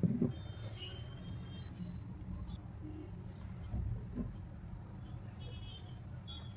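Faint handling of a ceramic cup in bare hands: a few soft bumps, the first right at the start and two more around four seconds in, over a steady low background rumble. A few faint high chirps sound in the background.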